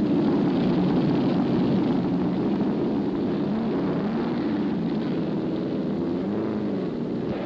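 Racing car engines running hard together, a dense steady rumble whose pitch swells up and down several times in the second half.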